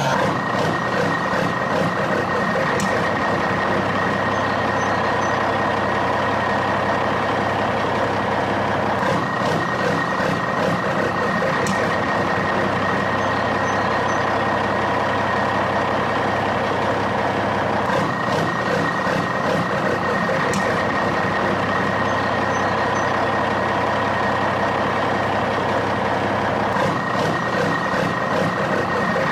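Heavy truck engine sound running steadily, with a steady high tone over it, the whole pattern repeating about every nine seconds like a looped sound effect.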